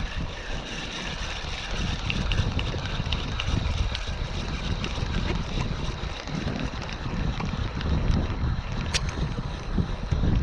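Wind buffeting the microphone: an uneven low rumble that swells and eases in gusts, with a faint steady high-pitched tone underneath.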